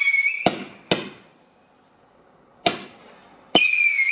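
100-shot firework cake firing single shots: sharp bangs at about half a second, one second and near three seconds in, with a quiet gap of over a second between. A shrill whistle tails off at the start, and another comes with a shot near the end, dipping slightly in pitch.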